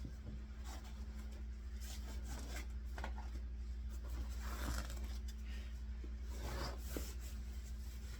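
Soft, irregular rustling and small clicks of baby clothes being handled and pulled onto a doll, over a steady low electrical hum.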